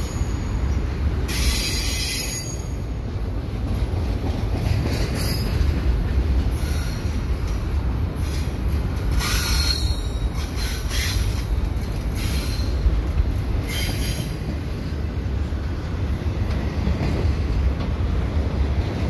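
Double-stack container well cars of a freight train rolling past close by, a steady low rumble of steel wheels on the rails. Several brief high-pitched wheel squeals come through as the cars take the curve.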